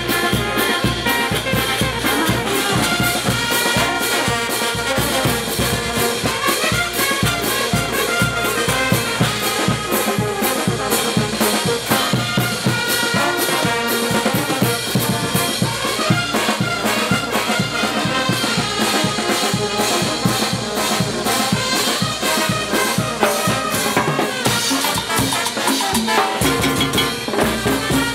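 Peruvian banda orquesta playing a dance tune: trumpets and trombones over drums with a steady beat. The low drums drop out for a couple of seconds near the end.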